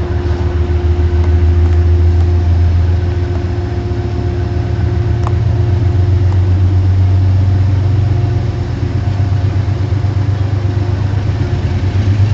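Low, steady diesel engine rumble from an approaching Metro-North train led by a P32 diesel locomotive, with a faint steady tone above it.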